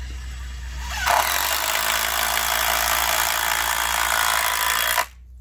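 Makita 18V cordless impact driver, the oldest model in the test, hammering a screw into hardwood in one continuous run of about four seconds, starting about a second in and stopping abruptly. It drives the screw in easily without bogging down.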